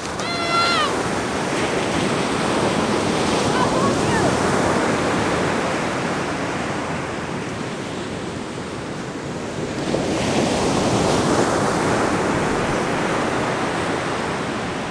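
Ocean surf breaking and washing up the beach in two long swells, with wind buffeting the microphone. A short voice call at the very start.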